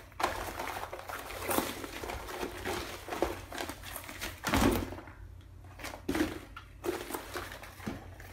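Deflated vinyl exercise ball being unfolded and handled on a tabletop: irregular rustling and crinkling of the plastic skin, with a dull thump about four and a half seconds in and a couple of lighter knocks after it.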